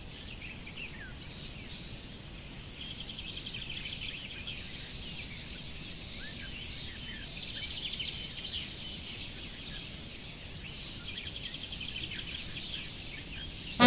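Birds chirping and trilling over a low, steady background hum of outdoor ambience, with many short high calls and a few fast trills.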